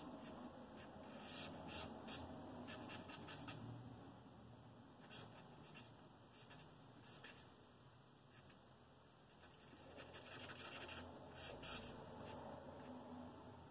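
Faint scratching of a piece of charcoal drawn across sketchbook paper, in short runs of strokes, with a quieter stretch a little past the middle.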